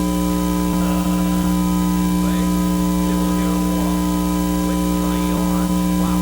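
Loud, steady electrical hum with several fixed tones, over faint wavering sounds.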